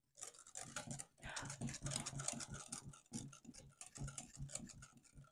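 Wire whisk clicking and scraping against a glass bowl as it beats a thick quark and yogurt cream, in short runs of quick ticks with brief pauses.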